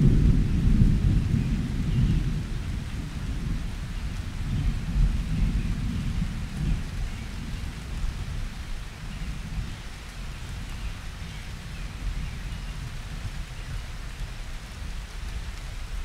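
Wind buffeting the microphone: a low, uneven rumble, strongest in the first few seconds and easing off after that.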